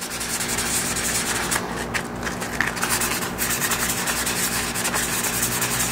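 Sandpaper rubbed by hand against the edge of a clear round tank piece in rapid back-and-forth strokes, roughing up the edge so silicone will adhere.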